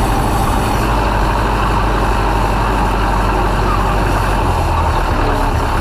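An Ursus C-4011 tractor's diesel engine running steadily under a light, even load.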